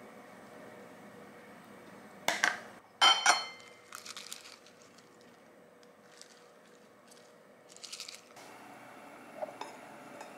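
Kitchen handling sounds while plating a rice bowl: a few sharp clinks of a small glass container, the loudest with a short ring, then light rustling and a brief crunch as sprout greens go on, and a small knock against the ceramic bowl near the end.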